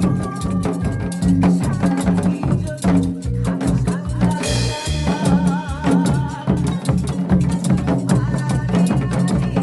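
Janggu (Korean hourglass drum) played in rapid strokes along with recorded backing music that has a drum kit, bass and a wavering melody.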